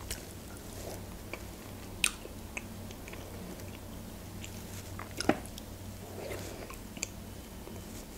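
Close-up eating sounds of soft, half-melted ice cream with berries taken from a spoon: a few separate small mouth clicks and smacks, with the spoon touching the glass plate.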